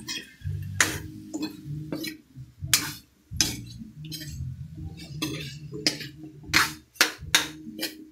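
Spatula knocking and scraping against a pan in irregular clicks while sliced ampalaya and pork are stir-fried in oyster sauce; a quick run of knocks comes near the end.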